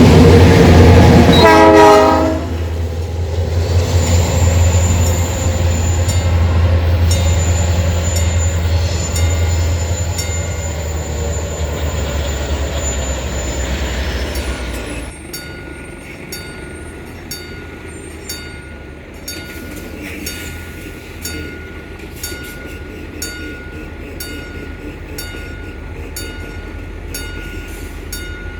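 Nathan P3 three-chime horn on an EMD G26C diesel locomotive blowing loud and ending about two seconds in, followed by the locomotive's diesel engine running with a low rumble that gradually fades. About halfway through the rumble drops suddenly, leaving quieter, irregular clicking of rail equipment with a thin steady whine.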